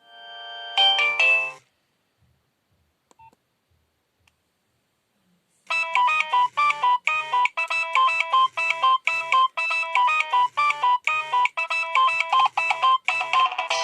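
Nokia 6030 mobile phone ringtone: a brief burst of tones about a second in, a pause of a few seconds, then a fast melody of short, rapidly repeating electronic notes that starts about six seconds in and keeps going.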